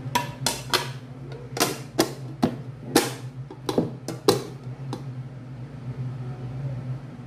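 A metal cake pan turned upside down on a plate and tapped repeatedly by hand, about ten sharp knocks over the first five seconds, to loosen the baked cake so it drops out onto the plate.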